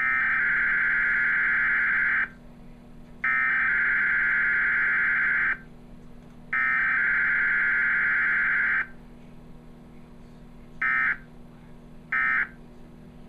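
Emergency Alert System data bursts from a TV broadcast's Required Weekly Test: three buzzing digital header bursts of about two seconds each, a second apart, then two short end-of-message bursts near the end.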